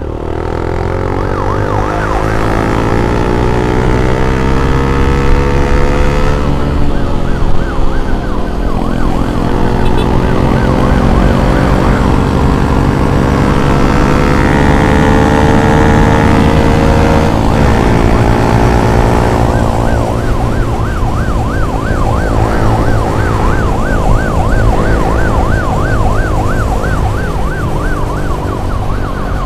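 Ambulance siren sounding close, a fast yelp for the first few seconds, then a slow rising-and-falling wail, and back to the fast yelp about two-thirds of the way through. A vehicle engine runs steadily underneath.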